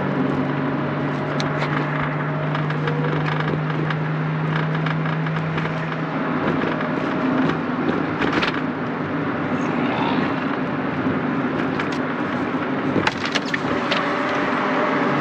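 A car running, with a steady engine hum and road noise. The low engine note drops away about six seconds in and comes back near the end, with a few light clicks shortly before.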